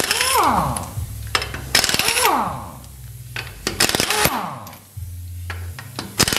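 Pneumatic impact wrench hammering wheel lug nuts loose, in four short bursts about two seconds apart. Each burst ends with the air motor's whine falling away as the trigger is released.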